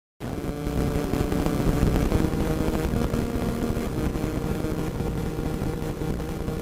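After a split second of silence, radio static with crackles cuts in abruptly and runs on steadily, with a rumbly low hiss.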